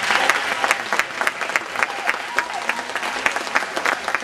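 Spectators applauding steadily, with many separate hand claps heard distinctly.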